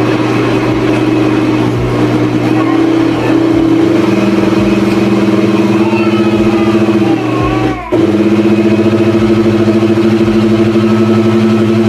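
Electric blender motor running with a steady hum while blending carrot cake batter. It shifts slightly in pitch a few seconds in, stops for a moment just before eight seconds in, then starts again.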